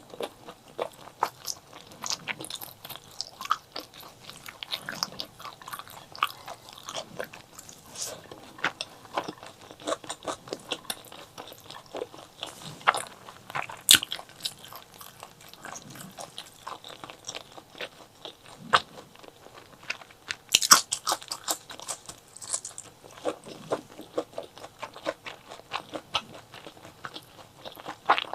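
Close-miked mukbang eating of chili and white rice: steady, irregular wet chewing and crunching, with a few louder crunches about halfway through and again about two-thirds of the way in.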